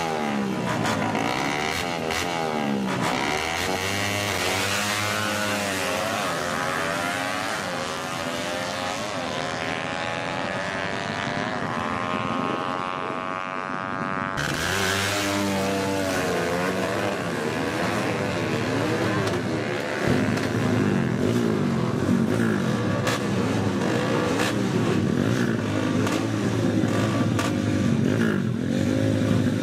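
Drag-racing motorcycles revving in repeated bursts at the start line, the pitch swinging up and down. Partway through, one bike accelerates away with its pitch climbing steadily for several seconds. After a sudden break, another bike revs hard.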